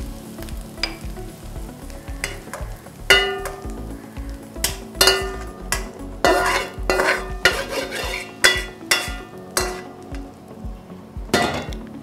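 Yellow plastic spatula scraping and knocking scrambled eggs out of a hot wok into a glass bowl, over a light sizzle from the pan. There are about eight sharp scrapes and knocks, unevenly spaced.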